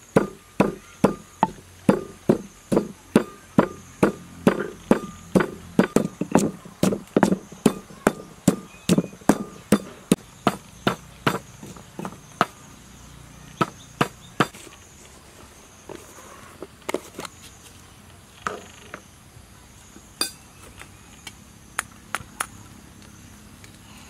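Wooden pestle pounding in a clay mortar with steady, even strikes, about two to three a second, which stop about fourteen seconds in. A few scattered knocks and clicks follow.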